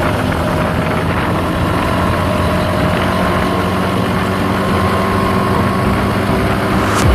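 Gyroplane's engine and propeller running steadily and loudly as the aircraft rolls across a grass airstrip.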